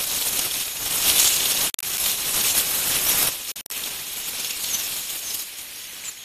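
Sped-up recording of the Cumbre Vieja eruption's roar on La Palma, heard as a steady high hiss that swells in its first half and cuts out for an instant twice, about two and three and a half seconds in.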